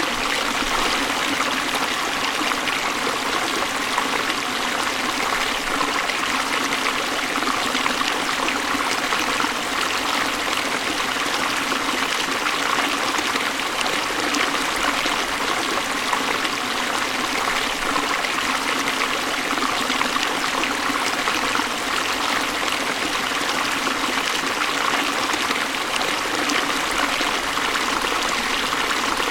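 Waterfall running steadily: an even, unbroken rush of falling and splashing water, bright and hissy with almost no low rumble.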